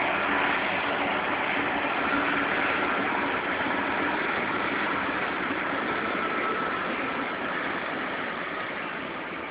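Union Pacific intermodal stack train passing: its diesel locomotives and steel wheels on the rails make a steady noise that slowly fades near the end.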